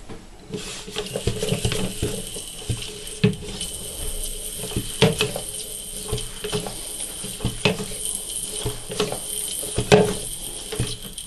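Compressed air from a bicycle pump hissing steadily through a washing-machine water-inlet solenoid valve that has just been switched off and closed: a small air leak past the valve, which still needs more oiling. The hiss starts about half a second in, with scattered clicks and knocks over it.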